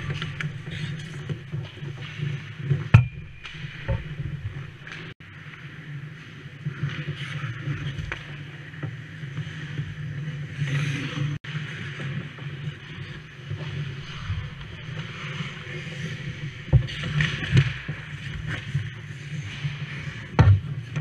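Ice hockey play around the goal: skate blades scraping and carving on the ice, with sharp clacks of sticks and puck a few times, loudest near the end, over a steady low rumble.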